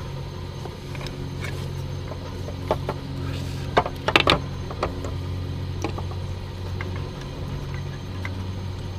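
Scattered clicks and clunks of hands working parts loose in a diesel pickup's engine bay, with a quick cluster of sharp clacks about four seconds in, over a steady low hum.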